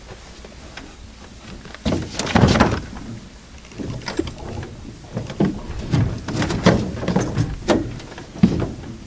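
Irregular knocks and thumps in a fishing boat as a freshly caught fish is handled aboard, the loudest cluster about two seconds in and a string of further bangs after.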